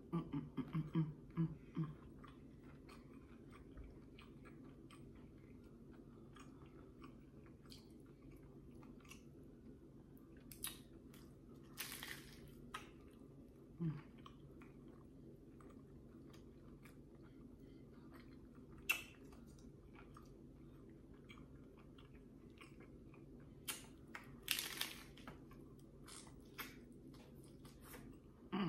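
Hard-shell taco being bitten and chewed close to the microphone: scattered crunches and mouth clicks, with louder crunching bursts about twelve seconds in and again near twenty-five seconds. A steady low hum runs underneath.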